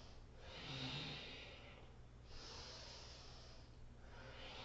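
Faint breathing of a woman exercising: three slow breaths, each a soft rush of air, timed with pumping up and down in a cobra pose.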